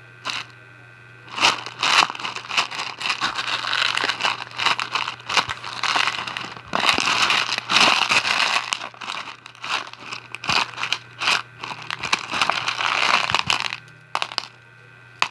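Hands squishing and kneading a fluffy slime with small plastic bracelet beads worked into it, making dense runs of crunchy crackles, pops and clicks. It starts about a second and a half in and eases off near the end.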